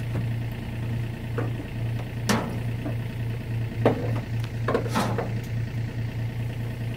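John Deere mini excavator's engine running steadily with an even throb, while the steel dump hoist box clanks in the pickup bed, about five sharp metal knocks, the loudest a little after two seconds and just before four.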